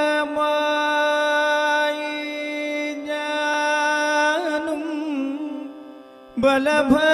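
A man singing a Malayalam devotional song in Carnatic style. He holds one long, steady note for about four seconds, then ornaments it with wavering turns before it fades. A new, ornamented phrase begins about six and a half seconds in.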